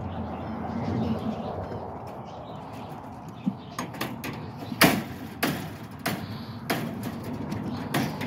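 A run of sharp knocks and bumps on wood and wire, starting about four seconds in, the loudest near the middle: a rabbit climbing onto a wooden nest box inside a wire-mesh hutch.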